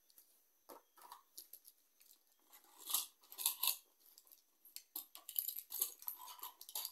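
Irregular rustling, crinkling and clicking from things being handled close to a phone's microphone, louder in bursts about three seconds in and again toward the end.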